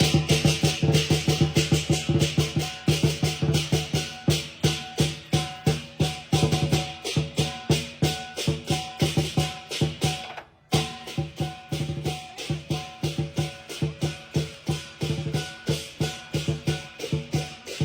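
Lion dance percussion: a large drum beaten in a fast, driving rhythm with clashing cymbals over it. It cuts out abruptly for a moment about eleven seconds in, then starts again.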